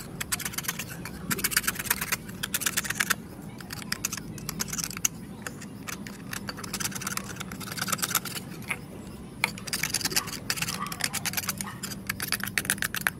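Kitchen knife blade scraping the fibre off the outside of a coconut shell half, in quick runs of short scratchy strokes with brief pauses between runs.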